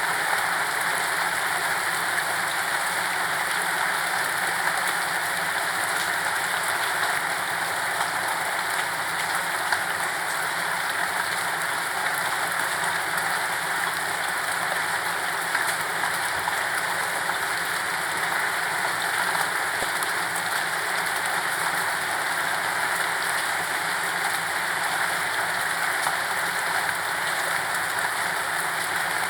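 Steady, continuous rainfall with no thunder: an even hiss of rain on a surface with faint scattered drop ticks.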